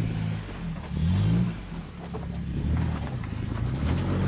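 Jeep Wrangler's engine revving up and dropping back several times as it crawls over rocks, with a few short knocks in the second half.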